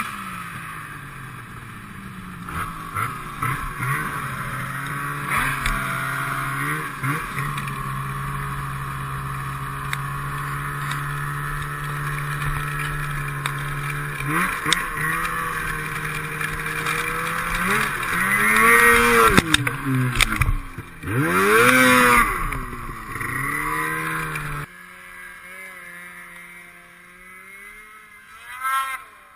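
Snowmobile engine running under way, with a steady rushing noise over it. Partway through the engine revs up and down several times. A little past three-quarters of the way in the rushing stops and the engine settles to a low idle as the sled comes to a stop.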